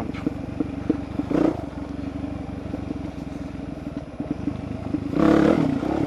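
Dirt bike engine running steadily while riding over a gravel road, with loose rattling clatter from the bike and stones. About five seconds in there is a louder rush for under a second.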